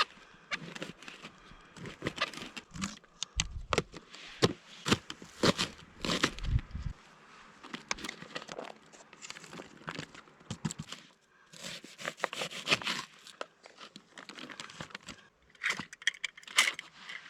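Plastic food packaging being handled, crinkling and tearing in irregular crackles, with a few dull knocks in the first half.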